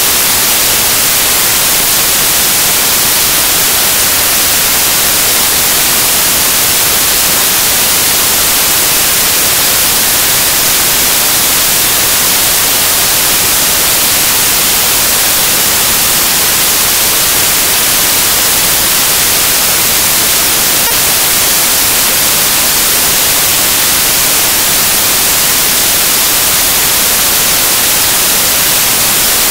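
Loud, steady static hiss, brightest in the treble, with no speech or other sound: the recording's audio signal has dropped out and only noise remains.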